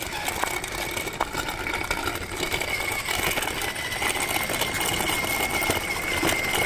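Electric RC crawler truck driving slowly on gravel while towing a loaded trailer: a steady high motor-and-gear whine over the crunch of small tyres on loose stones.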